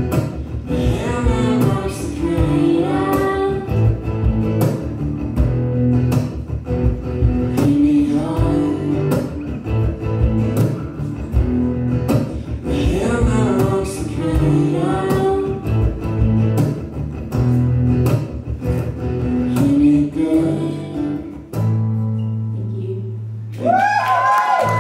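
Acoustic guitar strummed along with singing, played live. The song ends on a held low note about 22 seconds in, and a high voice that rises and falls comes in near the end.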